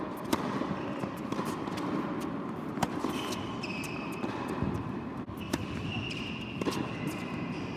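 Tennis ball struck by rackets in a serve and rally on an indoor hard court: sharp pops a second or two apart, with smaller ball bounces between them. Short high squeaks of tennis shoes on the court run through the middle and latter part.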